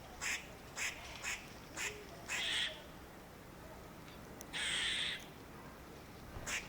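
A squirrel giving four short harsh barks in quick succession, then two longer rasping calls about two and a half and five seconds in, and one more short bark near the end.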